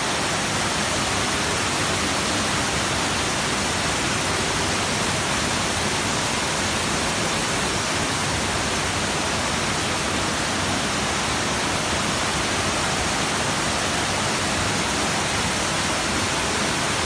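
Waterfall: a steady, unbroken rush of falling water, loud and even.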